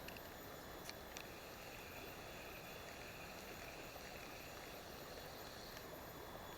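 Small river water flowing as a steady, faint rush, with a few short clicks about a second in.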